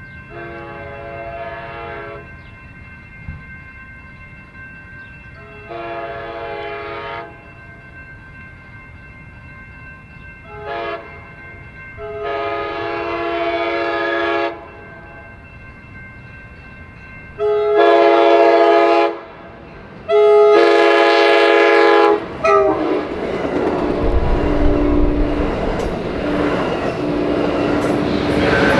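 Multi-chime locomotive air horn sounding the grade-crossing signal: two long blasts, a short one, then a long one, followed by two more long blasts, each louder as the train closes in. About 22 seconds in, the train passes at speed with a loud rush and wheel rumble while the horn chord breaks up.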